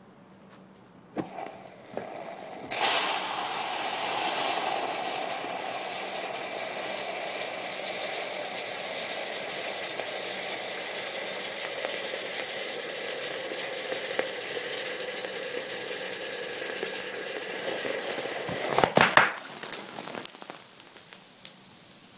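About 321 g of thermite burning in a steel pipe reaction chamber: after two small pops it catches suddenly about three seconds in and burns with a loud, steady hiss for some fifteen seconds, its tone sinking slowly. Near the end comes a cluster of loud cracks and then fading crackles, as the molten iron drops out and spatters, popping and burning in the open air.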